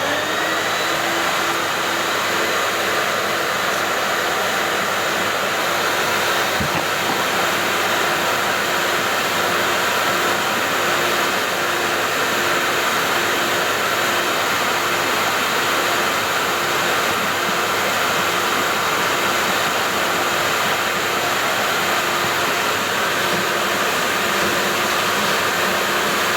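Vacuum cleaner motor running steadily with a high whine, sucking soapy water through a cyclone separator into a collection bucket to wash it out.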